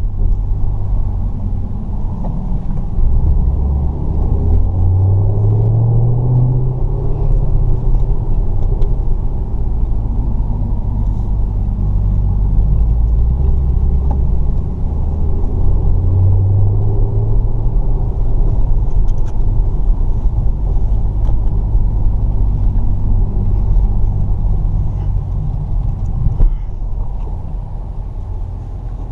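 A Chevrolet Camaro ZL1's supercharged LSA V8 pulling the car along at low speed, heard from inside the cabin: a deep rumble whose pitch climbs about four seconds in, again about halfway through, and then holds steady.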